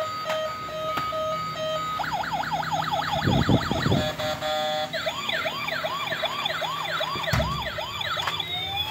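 Toy fire truck's electronic siren sound effects: a pulsing beep, then a fast yelping siren about two seconds in, then a slower repeating wail, and a long rising tone near the end. A few dull knocks are heard under it.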